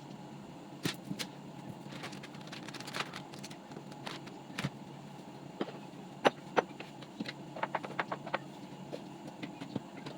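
Household objects being handled during cleaning: scattered light clicks and knocks, a few sharper ones past the middle, over a steady hum.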